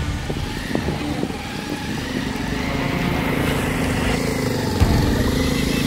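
Motorcycle engine running at low speed, growing slightly louder as it comes closer, with a dull thump near the end.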